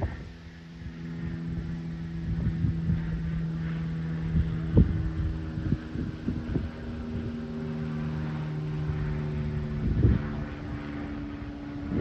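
A steady low engine hum with a few faint knocks, its pitch shifting slightly about halfway through.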